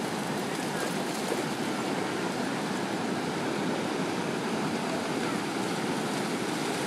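Ocean surf: a steady wash of breaking waves.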